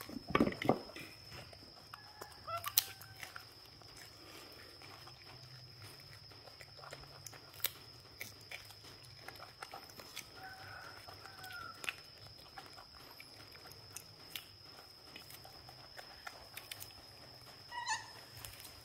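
Baby macaques biting and chewing pieces of raw gourd: faint scattered crunches and clicks, with a couple of thumps just after the start. A few faint short calls and a steady high-pitched whine sit underneath.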